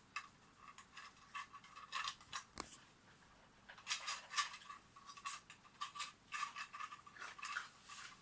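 Irregular plastic clicking and scraping as a 3D-printed anti-spill cup holder is moved and handled, with one sharper knock about two and a half seconds in.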